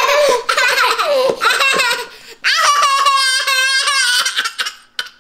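Toddler laughing loudly, breaking into a long high-pitched squeal in the second half.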